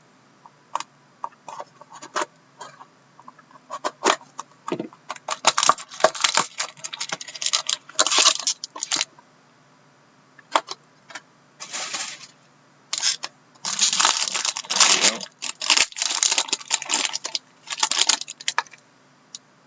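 A box of hockey trading cards being opened by hand: scattered clicks and taps, then bursts of rustling and crinkling from cardboard and pack wrapping being handled and torn open.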